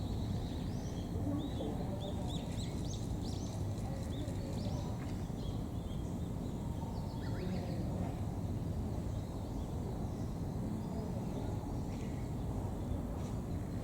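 Small birds chirping over a steady outdoor background hiss, with the chirps busiest in the first half.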